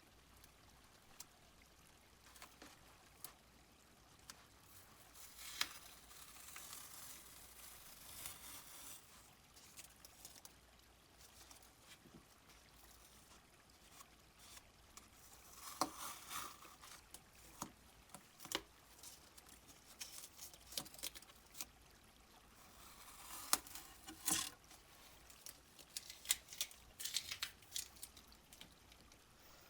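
Faint watercolor painting sounds: scattered taps, dabs and short swishes of a wet brush working on paper, with soft watery squishes, over a quiet steady background.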